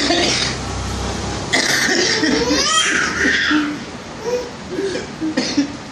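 Bursts of breathy, cough- or laugh-like vocal sounds, with a squeal that sweeps up and then down about halfway through and a few short vocal sounds near the end.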